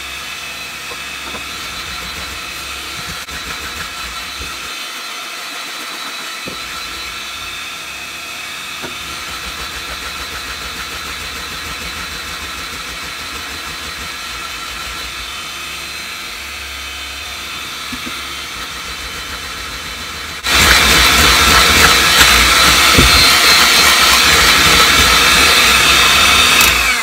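Electric hand mixer running steadily, its beaters whipping egg white and sugar into a stiff meringue while melted gelatin is mixed in. About two-thirds of the way through it becomes much louder, and it cuts off at the very end.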